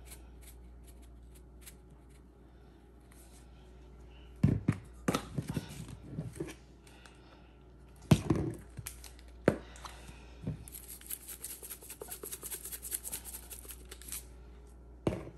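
Kitchen handling sounds while meat is being seasoned: several separate knocks and clatters, then a few seconds of rapid crinkling or rustling about two-thirds of the way through.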